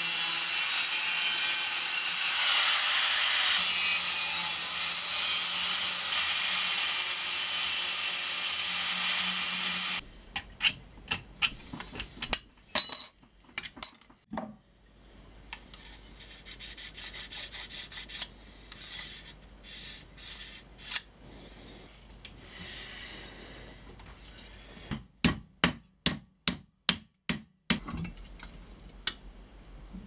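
Angle grinder grinding a steel part clamped in a vise, a loud steady hiss for about the first ten seconds that then cuts off suddenly. After it, quieter hand work at the vise: scattered scraping and rubbing strokes, then a quick run of sharp clicks near the end.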